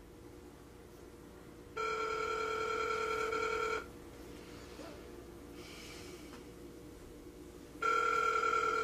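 Telephone ringing tone: a steady two-second ring about two seconds in, then after about four seconds of quiet a second ring starting near the end, in the usual phone-ring cadence.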